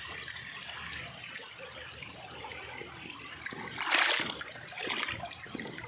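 River water flowing and trickling steadily, with a brief louder surge of water about four seconds in.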